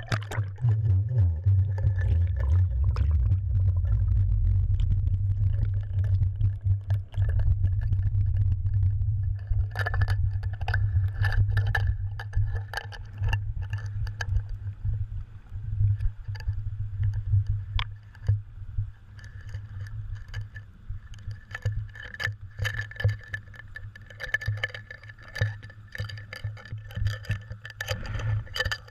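Muffled low rumble of water rushing and sloshing over a GoPro in its waterproof housing, clipped to a cod jigger as it is dropped and worked underwater. The rumble is loudest in the first half and eases off after about twelve seconds, with scattered clicks and knocks from the jig and line against the housing.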